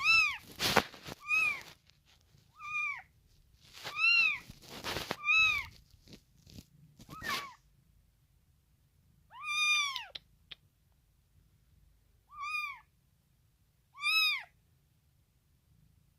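Kitten meowing: about ten short, high-pitched mews, each rising and falling, coming in quick succession at first and then every two seconds or so. A few breathy, noisy bursts are mixed in among the first calls.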